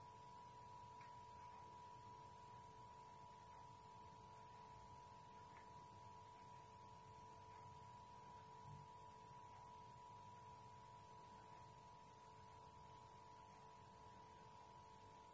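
Faint room tone: a steady electrical hum with several thin steady tones and a high whine, with no clear sound of activity.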